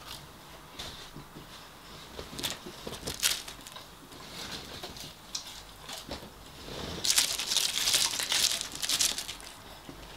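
Eating sounds close to the microphone: chewing and crunching of fried food, with scattered clicks and a denser crackly stretch about seven seconds in.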